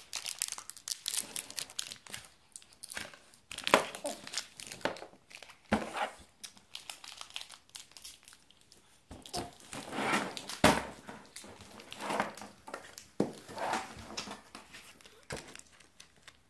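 A candy wrapper being crinkled and torn open by hand, in irregular crackles with a few louder bursts, as a child unwraps a sweet.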